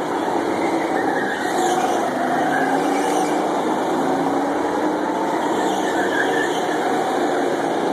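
Go-karts lapping a track, their motors' pitch rising and falling as they speed up and slow down.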